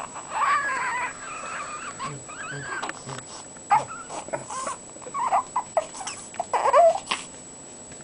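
Newborn baby fussing: a string of short whimpers and squeaky cries, the first about a second long near the start and the loudest near the end.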